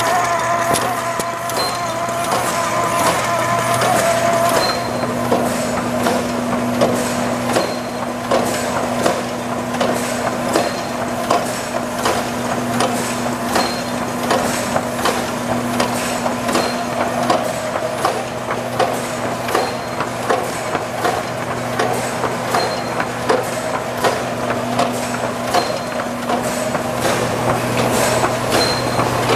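Egg carton labelling machine running: a steady hum under rapid, regular clicking and clacking of its carton-handling mechanism. A whine from the label feed rollers stops about five seconds in.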